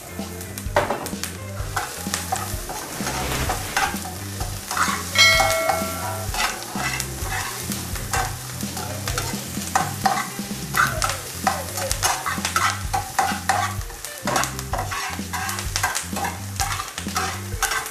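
Red onion and bell pepper sizzling in hot oil in a frying pan as they are stirred and the pan is tossed. Frequent scrapes and clatter sound over the sizzle, with a short ringing clink about five seconds in.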